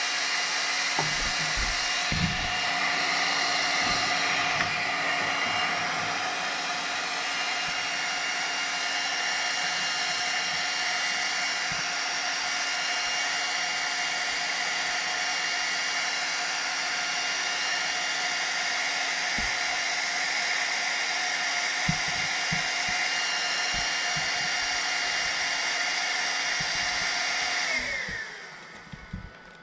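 Laser cutting machine for fabric running, its blower fans giving a steady whine. Near the end the whine slides down in pitch and fades as the fans wind down.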